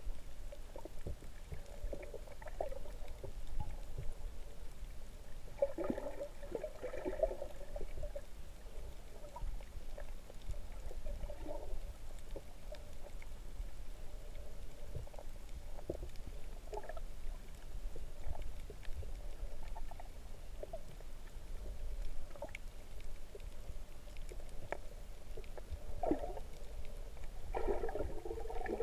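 Muffled underwater ambience picked up by a submerged camera: a steady low rumble with scattered faint clicks, and two louder muffled bursts, about six seconds in and near the end.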